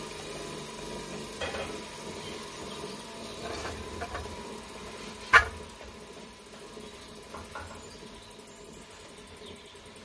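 Alternator with a bad bearing spinning, a steady grinding rumble with a thin whine through it: the sound of a worn alternator bearing. A single sharp knock comes about five seconds in, and after it the sound pulses rapidly.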